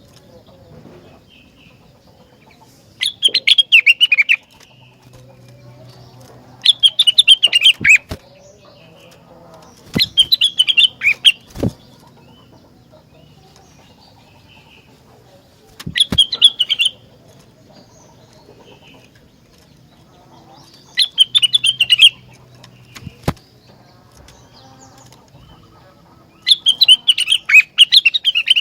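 A rengganis songbird singing vigorously in short, rapid chattering phrases, six of them, each a second or so long and a few seconds apart. A few sharp clicks fall between the phrases.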